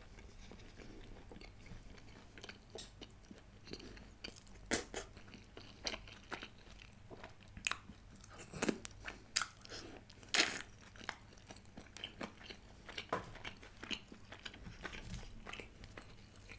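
A person eating close to a microphone: chewing and biting pieces of chicken, with irregular crunches and wet clicks, the sharpest about ten seconds in.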